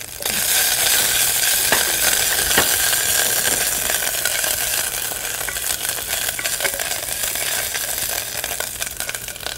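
Urad dal, minced ginger and green chilies sizzling with black mustard seeds in hot ghee, stirred with a wooden spoon in an enamel pot. The sizzle jumps up just after the start and slowly dies down, with scattered small crackles.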